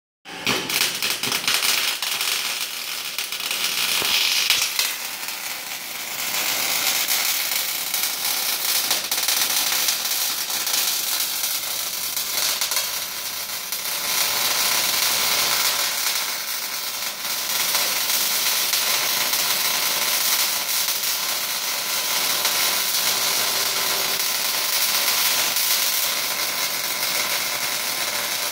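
Wire-feed (MIG) welding arc on steel, a continuous crackling sizzle that swells and eases slightly as the bead is laid.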